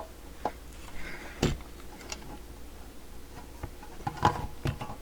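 Scattered clicks and knocks of the CB radio and tools being handled on a workbench, with a sharp knock about a second and a half in and the loudest one just past four seconds, over a faint steady low hum.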